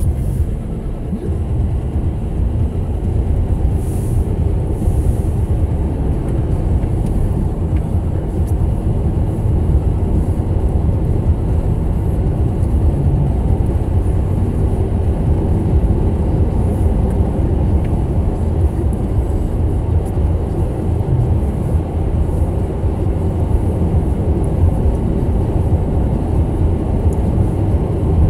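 Steady road and tyre noise heard inside a Toyota Corolla's cabin while driving at a constant speed on a snow-covered road, a low even rumble with no change.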